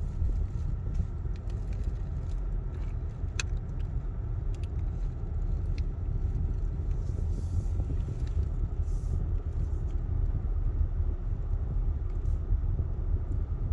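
Car driving uphill, heard from inside the cabin: a steady low rumble of road and engine noise, with a few faint clicks.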